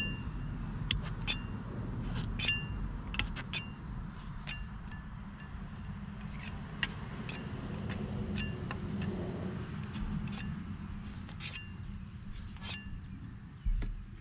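Light metallic clinks at irregular intervals, each ringing briefly at the same pitch, over a steady low rumble.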